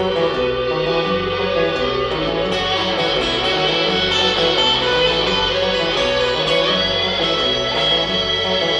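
Live band playing an instrumental break in a rock song: guitar over a repeating bass line, steady and loud.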